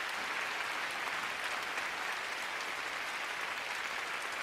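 Arena audience applauding steadily, a dense even clapping with no cheering or voices over it.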